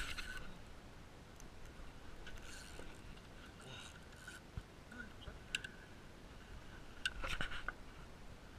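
Faint irregular clicks and light knocks from fishing gear on a small aluminium boat, over a low hiss. A cluster of louder clicks comes about seven seconds in.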